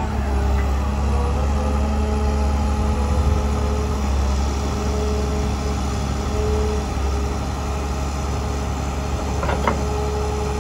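Caterpillar M322D MH wheeled material handler's diesel engine running at a steady, even speed with a deep hum, under a steady whine as its hydraulic outriggers are lowered. A couple of faint clicks come near the end.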